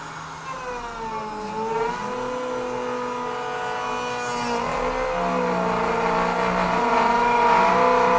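CNC router spindle whining as its bit cuts a pocket into a pine board; the pitch sags and climbs back about a second in as the cutting load changes, then holds fairly steady.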